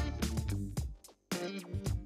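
Background music with a steady drum beat and bass line; it drops out for a moment just after a second in.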